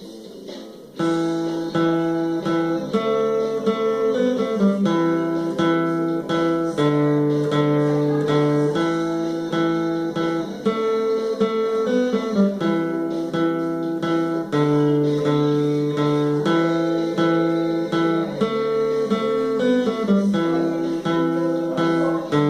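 Guitar playing a repeating run of strummed chords, the chord changing every second or two, starting about a second in.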